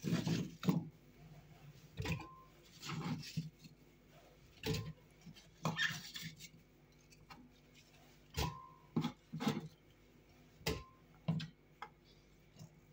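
Pieces of peeled apple being handled on a wooden cutting board and dropped into a blender jar: a dozen or so irregular knocks and thuds, some with a short ring from the jar.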